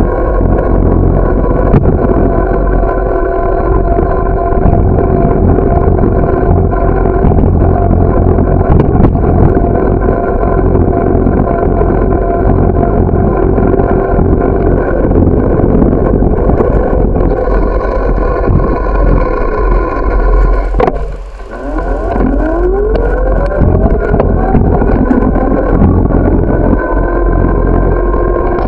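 Steady humming ride noise from a bicycle rolling along a paved street. About 21 seconds in it drops away briefly, then a tone climbs in pitch as it builds back up.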